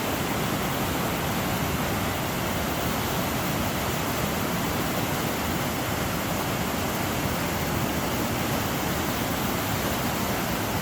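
Water pouring through a river weir: a steady, dense rushing noise with no breaks.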